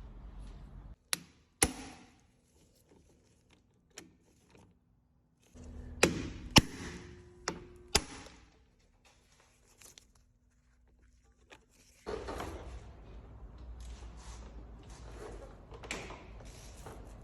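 Toyota Land Cruiser 200: a series of sharp clicks and knocks, several in quick pairs and a loud cluster in the middle, over a faint steady hum. These are the kind of clicks and knocks the owner is chasing when the brake is pressed. About twelve seconds in, a steady running noise with a low rumble starts.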